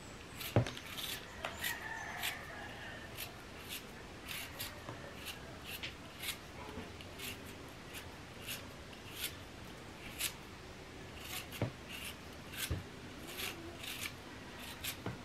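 Kitchen knife scraping and shaving the skin off a small taro corm held in the hand: short, crisp strokes, irregular, about one or two a second.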